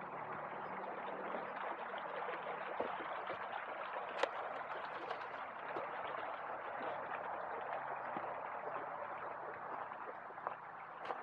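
River water flowing steadily in a continuous rush, with one sharp click about four seconds in.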